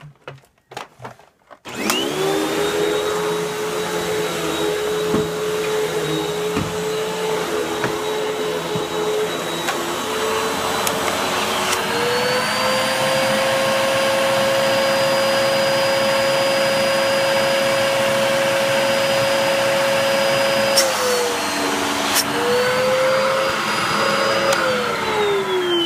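Vacuum cleaner switched on after a few clicks, its motor running with a steady whine that steps up in pitch about halfway through, dips briefly, then winds down as it is switched off near the end.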